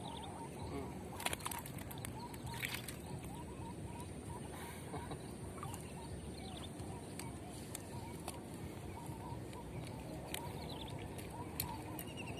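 Birds calling in short repeated chirps a few times over a steady low outdoor background noise, with a couple of sharp clicks near the start.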